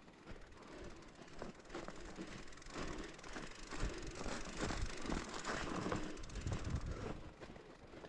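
Bicycle rattling and clicking as it is ridden over rough ground, louder for a few seconds in the middle.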